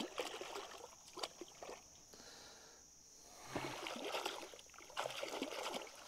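Shallow creek water splashing and trickling as a person wades and scrambles through it in mud, with scattered light knocks. It goes quiet for a moment midway, then the splashing picks up again.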